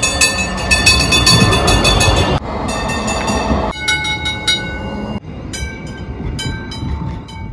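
Tram running on rails: a rumble and rattle with steady high whining tones above it. It changes abruptly about three times, as short clips cut together.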